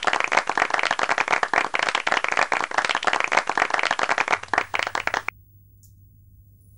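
Applause, many hands clapping densely, cut off abruptly about five seconds in, leaving a faint low hum.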